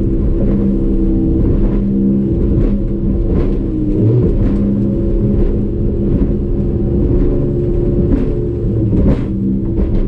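150 hp Evinrude E-Tec two-stroke outboard running hard at steady high revs, with a brief change in pitch about four seconds in. Regular thuds about once a second from the hull hitting waves.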